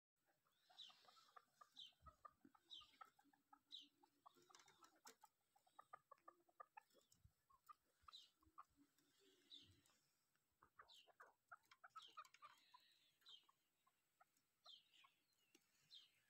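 Chukar partridge clucking faintly in quick runs of short notes, with thin high chirps sliding downward about once a second.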